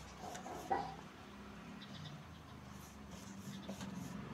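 Faint scratchy strokes of a bristle paintbrush spreading wood stain over popsicle-stick wood, over a low steady hum. A brief pitched squeak or call sounds a little under a second in.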